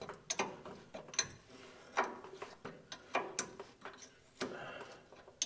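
Wrench turning the adjusting nut on an air-brake slack adjuster, giving irregular sharp metallic clicks as the brake shoes are taken up.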